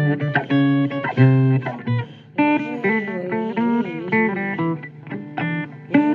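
Blues guitar playing a run of plucked notes and short phrases, with notes bending and wavering in pitch in the middle.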